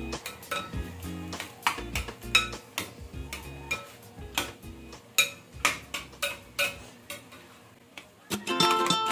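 A long-handled cooking spoon clinking and scraping against a glass pot while minced pork is stirred, in uneven taps a few times a second, over quiet background music. Louder plucked-string music comes in near the end.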